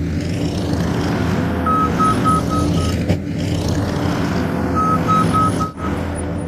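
New Holland C232 compact track loader's diesel engine running steadily while working, with its backup alarm sounding in short runs of quick high beeps as the machine reverses, three runs in all.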